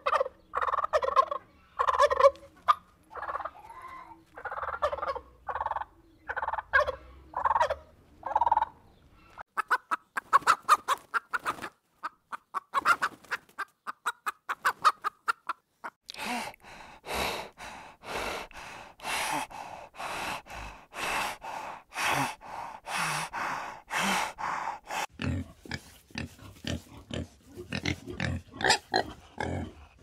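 Domestic turkey gobbling and clucking in a run of short calls, turning to a faster rattling gobble about ten seconds in. At about 16 s it gives way to a spotted hyena calling in a regular series, about two calls a second, followed near the end by the grunting of a warthog.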